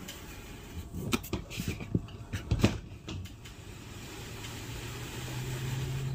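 Scattered knocks and scraping as an RV slide-out seal is worked by hand into its metal track, several sharp clicks in the first few seconds. Near the end a low steady hum rises.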